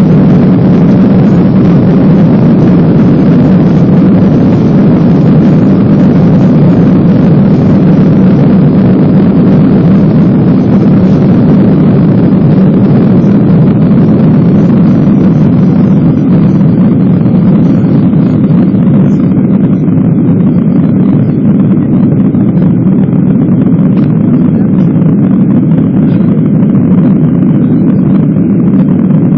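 Boeing 737-800's CFM56-7B jet engines at takeoff thrust, heard inside the passenger cabin: loud, steady engine and air noise as the airliner runs down the runway, lifts off and climbs. The higher hiss thins out a little over halfway through.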